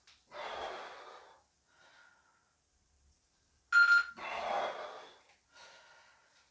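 A man breathing hard with exertion while doing dive-bomber push-ups: three or four heavy breaths through the mouth and nose. The loudest, about four seconds in, opens with a short high whistling note.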